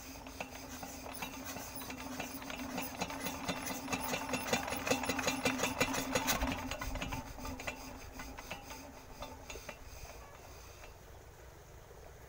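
Small single-cylinder diesel engine being turned over by hand crank: a fast, even clatter that builds to a peak about halfway, then slows and dies away as the engine coasts to a stop without starting.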